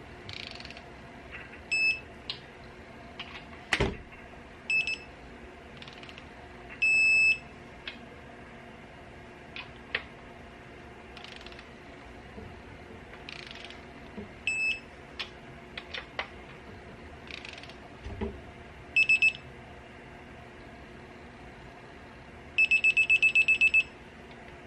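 Digital torque wrench beeping as the ARP main-stud nuts on a 2JZ crankshaft are torqued: single short beeps every few seconds, then a fast run of about ten beeps near the end. Sharp clicks and short scrapes of the wrench on the nuts come in between.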